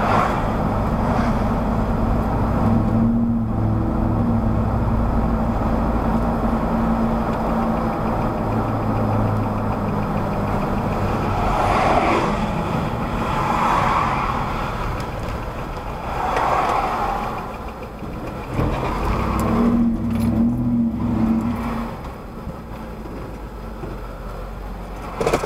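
Car driving at highway speed, heard from inside the cabin: a steady engine hum and tyre and road noise, with a few swelling whooshes in the middle. It gets quieter over the last few seconds as the car slows.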